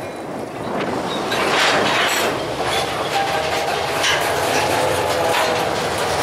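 Loaded-looking covered hopper cars of a freight train rolling past close by, wheels clacking and rumbling over the rail joints. About halfway through, a faint thin squeal rises from the wheels for a couple of seconds.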